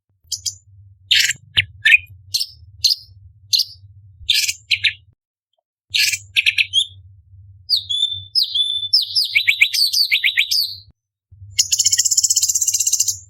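Orange-bellied leafbird singing: a string of short, sharp separate notes, then a quick run of falling notes about eight seconds in, and a dense buzzy trill near the end.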